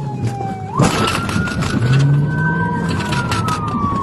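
Police car siren wailing over the cruiser's engine and road noise: the tone jumps up sharply about a second in, then slowly falls.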